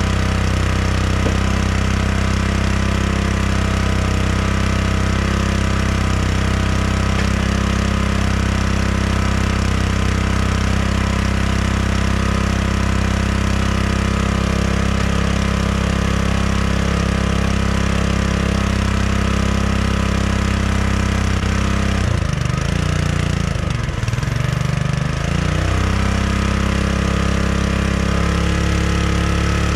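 Small gas engine on a hydraulic log splitter running steadily, which the owner says is still running a bit rough. About two-thirds of the way through, its pitch sags for a few seconds and then recovers.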